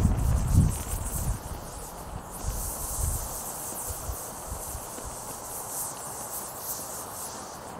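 Open fire crackling in a metal brazier, with wind rumbling on the microphone for about the first second and a half.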